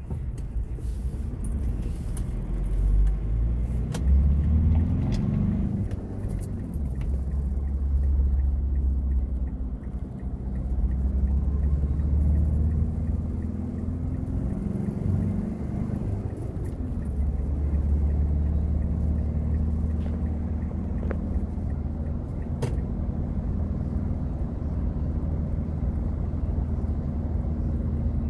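Car running on the road, heard from inside the cabin: a steady low engine and road rumble, with the engine note rising and falling a few times.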